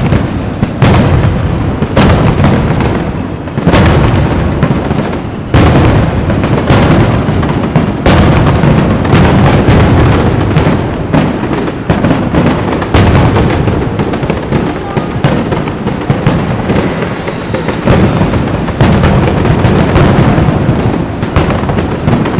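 Fireworks display at its finale: a rapid barrage of loud aerial shell bursts, at first about one a second, then a dense continuous rumble of overlapping booms and crackling from about eight seconds in.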